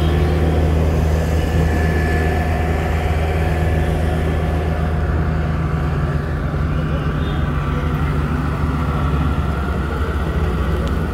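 Diesel engines of road rollers, a steel-drum roller and a Sakai pneumatic-tyre roller, running steadily as they compact fresh asphalt: a continuous low drone.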